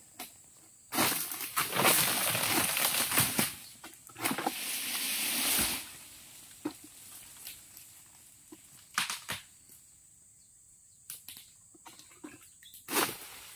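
Dry fallen oil palm fronds rustling and crunching in two long bursts in the first half, then a few sharp snaps and crackles, as a person shifts and steps through the litter while working a long harvesting pole.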